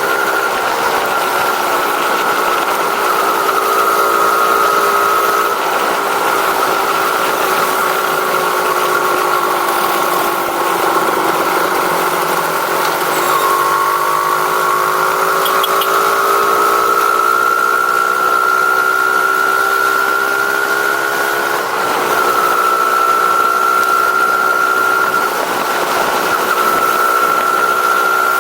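Engine on a stock exhaust running steadily under a high whine. Its pitch sags and recovers about halfway through and again about three-quarters of the way through.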